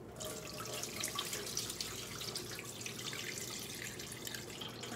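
Cloudy rinse water pouring from a bowl of washed sticky rice into a stainless steel sink drain, a steady spattering trickle: the rice is being drained after rinsing.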